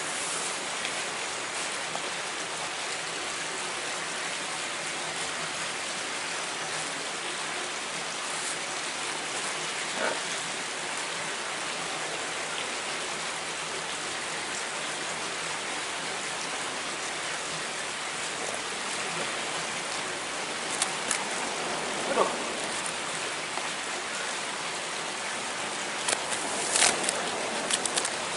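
Steady rushing hiss of water, with a few short sharp clicks and taps, several of them close together near the end.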